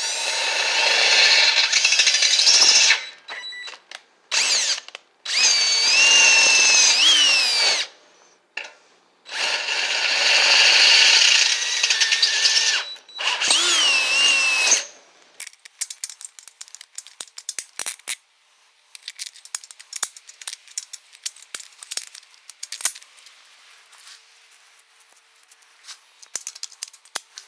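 Power drill boring mounting holes in steel in several runs of a few seconds each, the motor's pitch sagging and recovering as the bit bites. After that, light scattered clicks and clinks of metal parts being handled.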